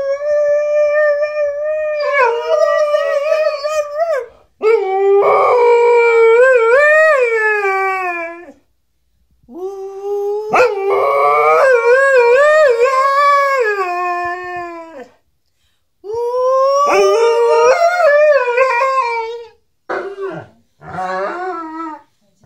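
Alaskan malamute howling along with a woman who howls with it: long, drawn-out howls that waver in pitch, separated by short pauses, with shorter howls near the end.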